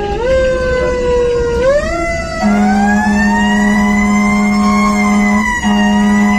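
A fire engine's Federal Q mechanical siren heard from inside the cab, winding up in two steps and then slowly rising and falling. From about two and a half seconds in, a long steady blast of the air horn sounds over it, broken briefly near the end.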